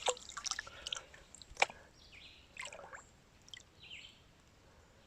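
Gravel and water shifting in a gold pan, with small clicks of pebbles and one sharp knock about a second and a half in, followed by soft swishes of water.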